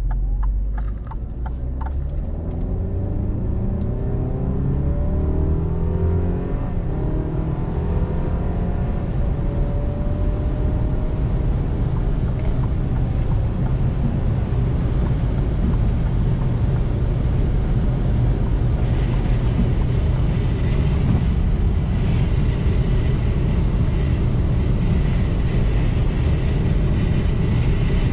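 Car engine heard from inside the cabin, accelerating from a stop with its pitch rising through the gears over the first several seconds, then settling into steady engine and tyre noise at cruising speed. A few sharp clicks near the start.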